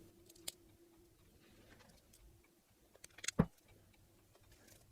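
Small clicks of steel forceps picking up 1/8-inch steel ball bearings and setting them into grease in a pedal body: one light click about half a second in, then a quick run of clicks a little over three seconds in, the last one loudest.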